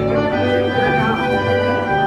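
Instrumental music: a tune of short held notes over a bass line.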